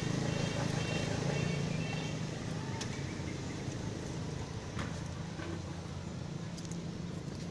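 A steady low engine hum, with a few faint clicks.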